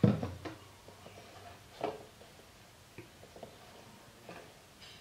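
A plastic bottle set down on a sink counter with a sharp thump, followed by soft rustling and a few light clicks as a damp cloth is handled and rubbed between the fingers.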